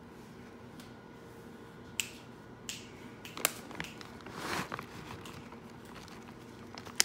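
Scattered sharp clicks and taps with a short rustle about halfway through, over a faint steady hum: kitchen handling noises as cheddar cheese is spread over the macaroni in the dish.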